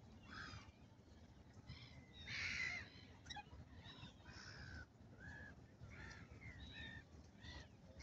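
A flock of waterbirds calling: a string of short harsh calls, about one a second, with a louder, rougher call about two and a half seconds in.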